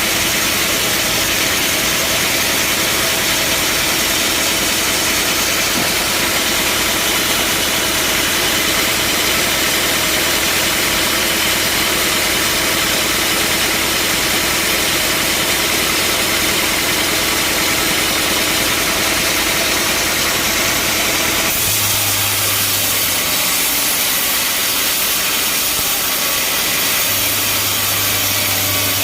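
Bandsaw sawmill running steadily, a loud even mechanical noise with a steady hum; its tone changes about three-quarters of the way through.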